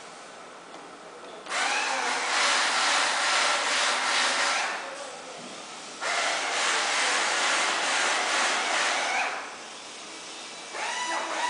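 Two bursts of loud, hissing machine noise from a high-frequency PVC welding machine, each lasting about three seconds with a short pause between them.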